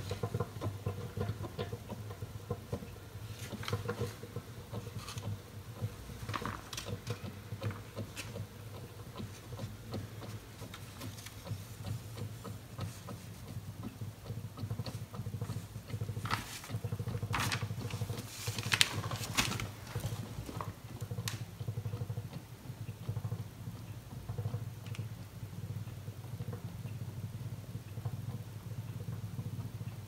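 Electriq tabletop dishwasher boiling water to make steam for its wash cycle: a steady low hum with a fine crackling and popping of water coming to the boil, with a few louder crackles about halfway through.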